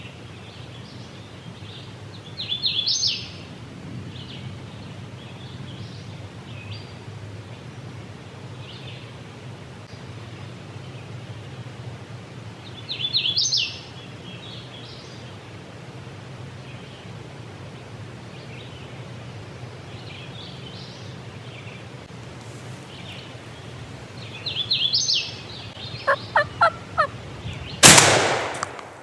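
Wild turkey gobbler gobbling loudly three times, about ten seconds apart. Near the end comes a quick run of short calls, then a single shotgun blast, the loudest sound, as the gobbler is shot at about 30 yards.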